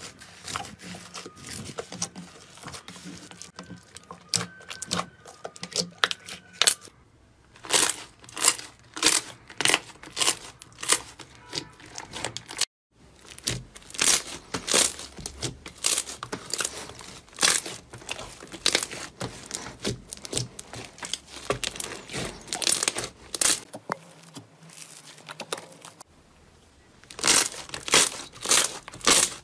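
Slime being squeezed and poked by hand, making runs of sharp crackles and pops, with a quieter stretch at the start. There is a brief break about 13 seconds in, as one clip gives way to the next.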